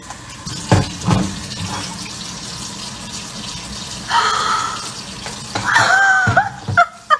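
Kitchen tap running into a sink, with a couple of knocks about a second in. About four seconds in, water is splashed from a cup and a woman shrieks, then cries out again near the end.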